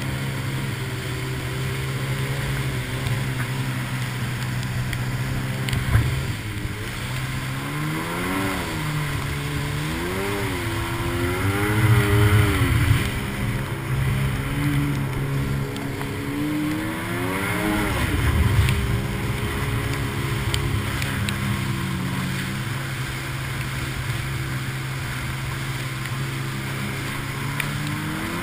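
WaveRunner personal watercraft engine running at speed over rushing water and spray. Its pitch rises and falls a few times with throttle changes.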